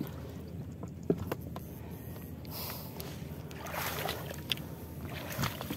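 Shallow water sloshing and splashing as someone wades and works an electrofishing pole through a flooded field, with a few sharp clicks about a second in and louder splashes near the end.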